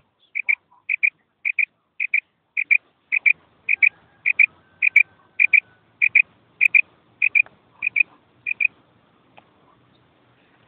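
Female quail giving its repeated two-note "kirak" call: about fifteen high double notes, a little under two a second, stopping about nine seconds in.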